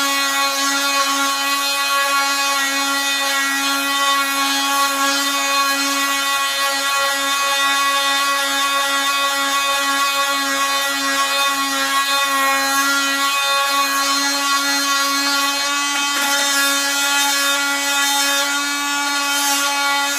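Cordless drill running at one steady speed, sanding the outboard motor's metal skeg to scuff it: a constant motor whine over the scratchy rasp of the abrasive.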